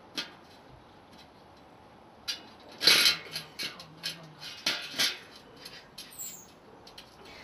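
Sharp metallic clicks and rattles of bicycle spokes being handled and worked through a rear wheel, a cluster of taps in the middle, loudest about three seconds in.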